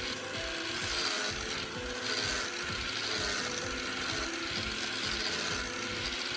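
Angle grinder running a homemade sanding disc, sandpaper glued onto a DVD, grinding down the edge of a wooden block: a steady rasping hiss, over background music with a regular beat.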